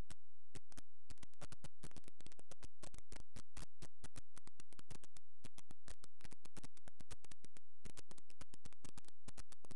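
Dense, irregular crackling static, many clicks a second over a faint low hum: noise from a Logitech QuickCam webcam's microphone.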